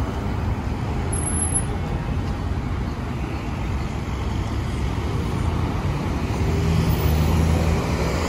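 City traffic: cars driving around a paved square, a steady low rumble, with one vehicle's engine growing louder about six seconds in.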